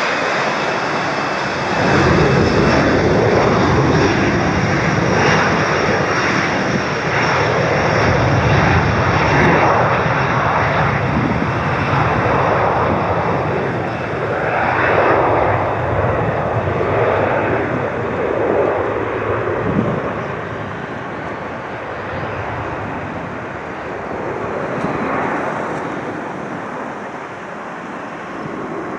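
Boeing 737-400's jet engines running at high power: a loud rumbling roar that swells and ebbs, with a high fan whine over it in the first half, easing off in the last third.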